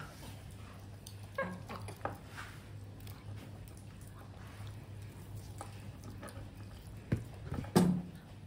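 A baby monkey eating corn on the cob: a few scattered small clicks and knocks over a steady low hum, the loudest knocks near the end.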